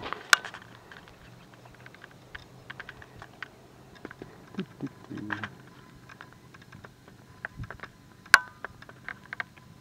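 Scattered, irregular light clicks and crackles, with one sharper click a little past eight seconds and a short low sound near the middle.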